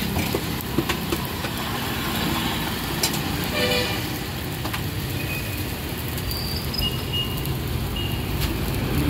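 Steady street traffic noise with a vehicle horn tooting briefly a little over three seconds in; a few short high beeps and scattered clicks follow later.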